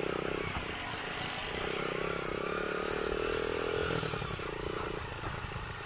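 Motorcycle engine running under way on a rough road. Its pitch climbs steadily from about a second and a half in, then drops away just after four seconds.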